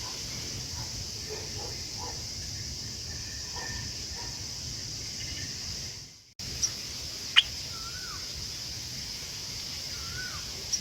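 A steady high insect drone with faint bird calls. After a brief drop to silence about six seconds in, there is a sharp click and then two short whistled bird calls that bend in pitch.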